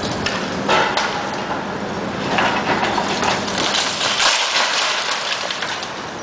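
Brick walls crumbling and rubble crashing down as a John Deere 450 knocks them over with a pole, heard as a noisy rumble broken by several spells of clattering brick and debris.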